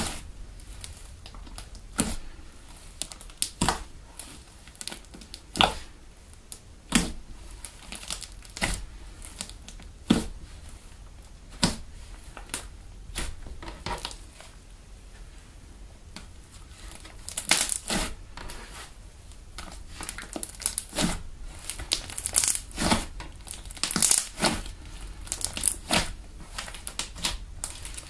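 Foamy PVA-glue slime being kneaded and squeezed by hand: irregular short sticky pops and crackles as air trapped in the slime is pressed out. The pops come sparsely at first and much more often in the second half.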